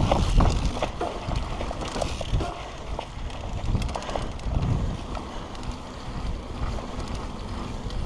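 Mountain bike rolling down a dry dirt trail: wind buffeting the microphone, with tyre noise on the dirt and scattered rattles and clicks from the bike over the bumps.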